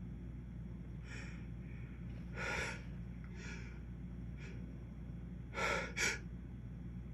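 A man's short gasping, sniffing breaths, about six of them spaced out, the last two quicker and louder: the catching inhales that build up to a sneeze.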